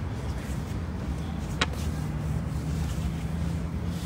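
Low, steady outdoor rumble with a single sharp click about one and a half seconds in.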